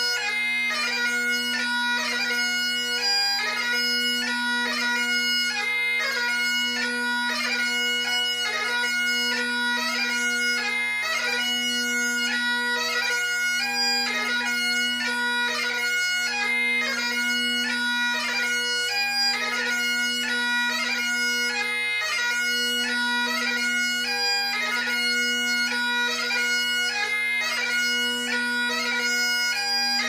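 Great Highland bagpipe playing piobaireachd: the drones sound steadily under the chanter's melody, which is broken up by many quick grace notes.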